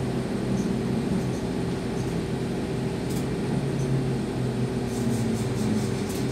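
Train running slowly, heard from inside the driver's cab: a steady low hum with a couple of drone tones from the traction equipment and the wheels on the rails, with a few faint ticks about five seconds in.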